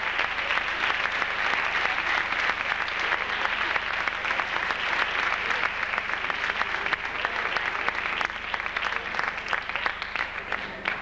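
Theatre audience applauding, a dense patter of many hands clapping that thins out and grows quieter over the last few seconds.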